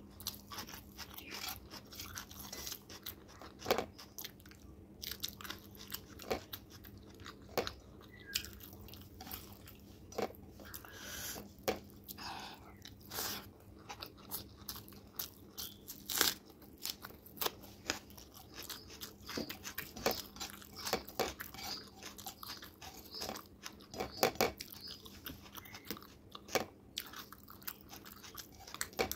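Close-miked eating of rice and chicken curry by hand: wet chewing and lip smacks with many irregular sharp clicks.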